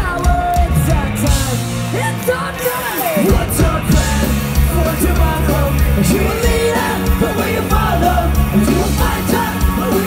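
Live ska-punk band playing loud through a venue PA, with electric guitars, bass and drums and voices singing over them. The drums and bass drop out for about a second partway through, then the full band kicks back in.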